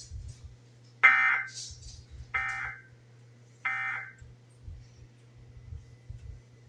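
Emergency Alert System end-of-message data bursts: three short, identical buzzy blasts of SAME digital code about a second and a quarter apart, marking the end of the alert test.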